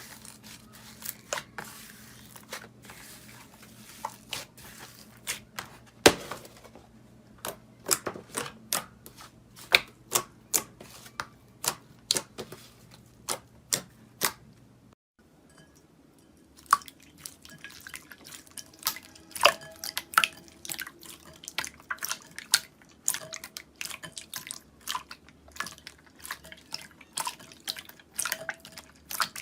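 Slime being pressed and poked by hand, giving a string of sharp, wet pops and clicks, one or two a second at first and more often later. The faint background hum changes about halfway through.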